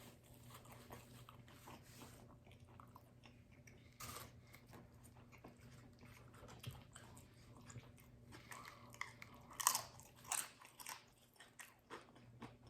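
A person chewing and biting a buffalo chicken quesadilla close to the microphone: soft, wet mouth sounds and small clicks, with louder crunchy bites about four seconds in and again around ten seconds in.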